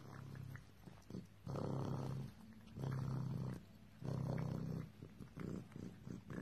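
Pet raccoon purring in repeated rhythmic bursts, the three loudest about a second apart, each lasting under a second, the contented sound of a raccoon being cuddled.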